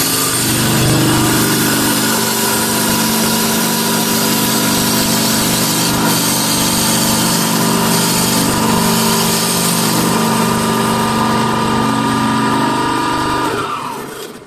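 CNC wood turning and sanding lathe running, its motor-driven abrasive flap-brush wheels sanding a spinning turned wooden spindle: a steady motor hum under a loud, dense sanding hiss. Near the end the motors wind down, pitch falling, and the sound dies away.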